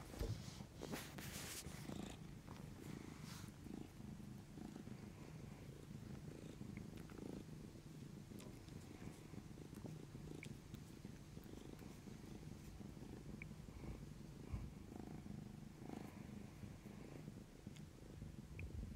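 Tabby kitten purring steadily, a close, low rumble, while it kneads and nuzzles a hand. A few rubbing and bumping noises in the first few seconds.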